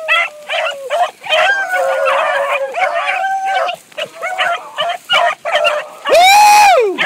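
A pack of beagles giving tongue: many overlapping baying calls from several hounds at once. Near the end one loud, long call close by rises and then falls.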